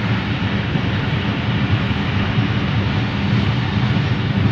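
Steady rumble and rush of a train in motion, heard from on board at an open window: the wheels running on the rails under a broad hiss of moving air.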